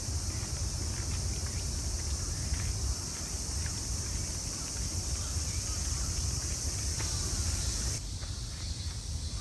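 Steady high-pitched insect chorus over a low rumble of wind on the microphone, with a few faint bird chirps; the insect sound thins out abruptly near the end.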